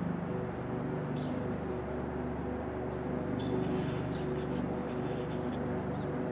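Steady low engine hum, like an idling motor or nearby traffic, with a few faint high chirps about halfway through.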